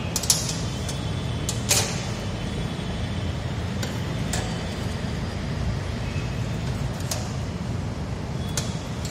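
Scattered sharp clicks from steel dissecting scissors and forceps snipping and knocking as they cut open the heart's pulmonary veins, over a steady low background rumble.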